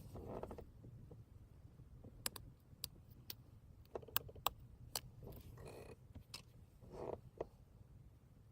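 Scattered small sharp clicks and a few brief rustles, irregular, over a faint low hum: handling noise of small objects being worked by hand.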